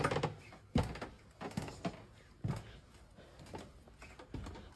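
Footsteps climbing a flight of stairs: a series of separate thuds roughly a second apart.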